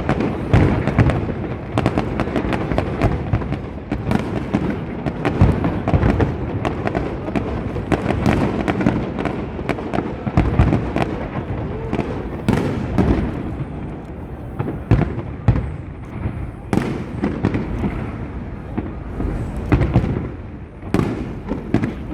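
Fireworks display: rapid, overlapping bangs and booms of aerial shells with crackling, echoing across the river, thinning to more spaced single booms in the second half.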